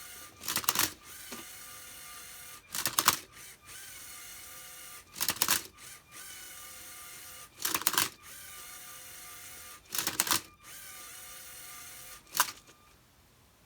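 Lego Mindstorms MindCuber robot's motors whirring in six short bursts, about every two and a half seconds, as it turns the Rubik's Cube. A steady faint whine runs between the bursts and stops after the last one.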